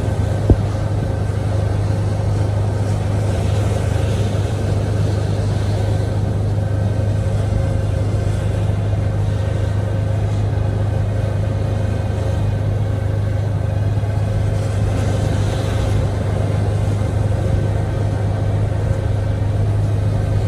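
Generator running steadily, a constant low hum, with a single sharp click about half a second in.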